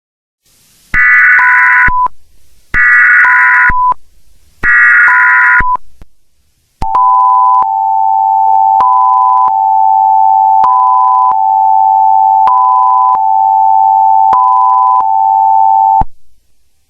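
Emergency Alert System tones: three short bursts of screeching digital header data, each ending in a brief beep. These are followed by the steady two-tone attention signal, held for about nine seconds, with a short higher beep repeating every couple of seconds over it. The tones signal that an emergency message is about to be read.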